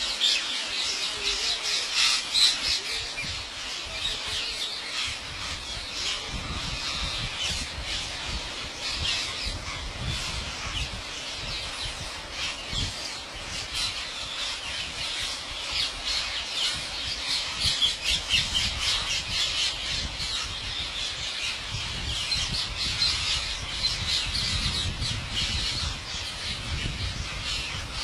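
A large flock of rose-ringed parakeets calling, with many shrill squawks overlapping without a break.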